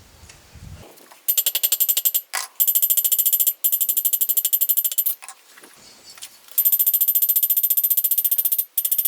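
Rapid hammer blows on hot rebar steel over an anvil, forging the end out flat, with the anvil ringing at each strike. They come at about six a second in two runs: a couple of seconds of blows, a pause of about three seconds with a few odd knocks, then another run near the end.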